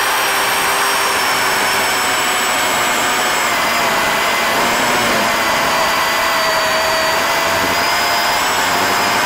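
DeWalt FlexVolt brushless battery chainsaw running at full speed with a rip chain, ripping lengthwise along the grain of a hard bloodwood log. It gives a steady high motor whine whose pitch wavers slightly as the chain bites into the wood.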